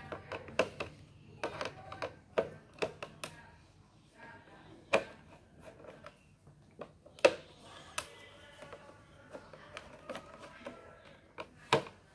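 Screwdriver clicking against screws and the plastic housing as the screws holding an induction cooker's control circuit board are undone. Irregular sharp clicks and taps, the loudest about five, seven and eight seconds in and again near the end.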